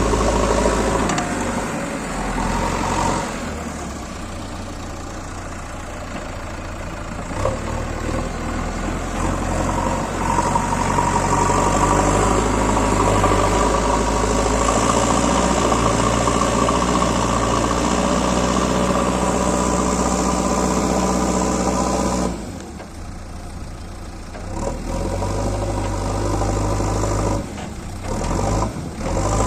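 Diesel engine of a JCB 3DX Eco backhoe loader running as it works, its pitch shifting in steps. The sound drops away briefly twice in the last third.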